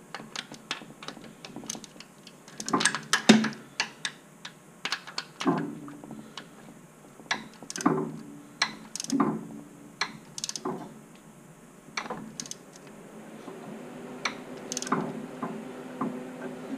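Ratchet wrench clicking in short runs as it tightens the lock bolt on the timing belt tensioner, with several louder knocks that ring briefly.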